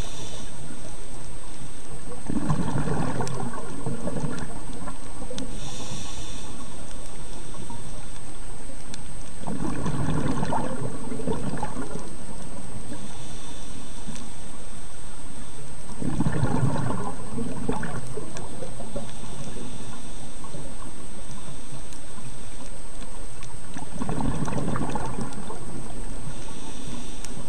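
Scuba diver breathing through a regulator underwater: a faint hiss on each inhale, then a rush of bubbling exhaled air, about one breath every seven seconds, four breaths in all.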